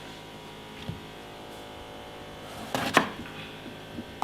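A kitchen knife cutting eggplant on a cutting board: a few sharp knocks about three seconds in, over a faint steady hum.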